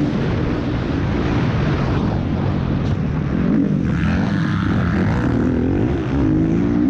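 Motocross bike engine heard close up from a bike-mounted camera. The engine comes off the throttle while the bike brakes hard into a corner, and the note drops and goes rough. Near the end it revs back up as the rider gets on the gas out of the turn.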